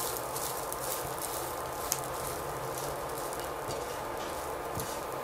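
Rice sizzling in a nonstick frying pan as it is stirred and turned with a silicone spatula: a steady low hiss with light scrapes and a sharp tick about two seconds in.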